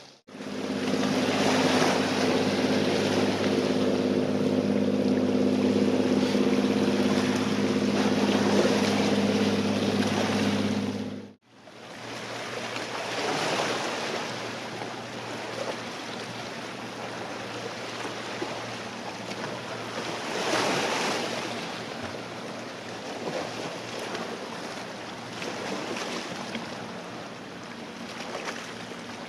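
A loud, steady, low mechanical drone with several held tones cuts off abruptly about eleven seconds in. After that, small waves wash at the water's edge with wind on the microphone and a faint low hum underneath.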